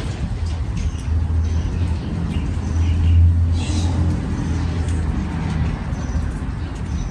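Low steady rumble that swells about three seconds in, with small birds chirping in short high notes over it.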